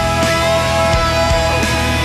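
Background rock music with held notes over a steady drum beat.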